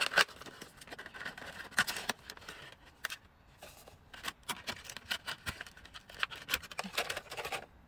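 Product packaging handled and opened by hand: a cardboard box, then a clear hard-plastic clamshell tray, giving irregular crackles and clicks.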